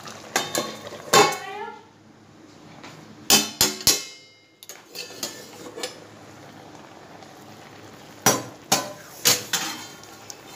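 A stainless-steel lid clanks against the rim of a karahi in clusters of ringing metallic knocks as it is set on and lifted off: about a second in, between three and four seconds, and again near the end. Under the knocks runs the faint steady hiss of chicken curry simmering in the pan.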